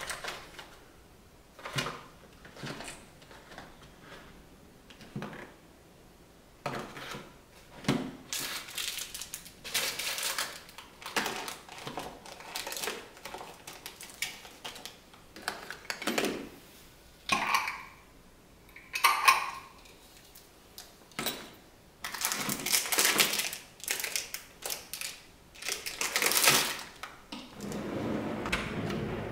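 Small household items clicking and clattering as they are picked out of and set back into plastic organizer bins in a kitchen drawer. Near the end the drawer slides shut on its metal runners.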